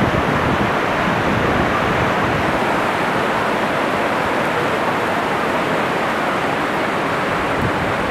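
Whitewater of a river rapid rushing steadily, an even, unbroken noise.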